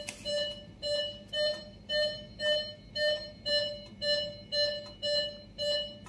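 Electronic beeping from a bedside patient monitor: short, identical beeps about twice a second in a steady rhythm, like a monitor's pulse beep.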